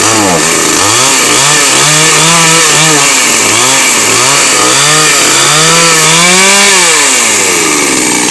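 Two-stroke chainsaw engine running loud and being revved up and down over and over, its pitch rising and falling roughly once a second. Near the end it gives a longer rev, then drops back toward idle: a test run of the repaired saw.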